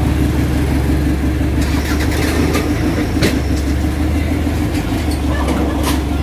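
A vehicle engine idling close by, a steady low drone, with street traffic behind it and a few faint clicks.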